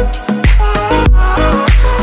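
Background music with a steady beat and deep bass, with pitched melody notes over it.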